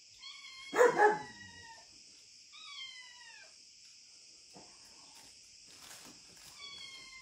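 A dog barks twice in quick succession about a second in. High, thin calls that fall in pitch come three times, the last near the end, over a steady high hiss.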